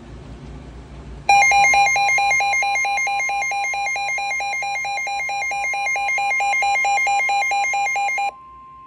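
Weather-alert receiver sounding a severe thunderstorm warning alarm: a loud warbling electronic alarm pulsing about four times a second over a steady single tone. The warble cuts off suddenly near the end and the steady tone carries on alone.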